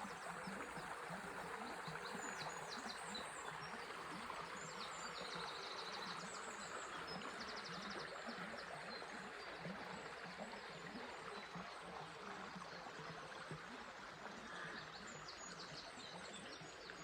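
A small river flowing steadily, with small birds singing high trills and chirps over the water, most busily in the first few seconds and again near the end.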